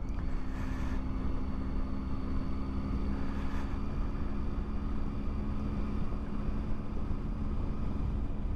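Triumph Tiger 800's three-cylinder engine running at a steady cruise, with wind and road rumble.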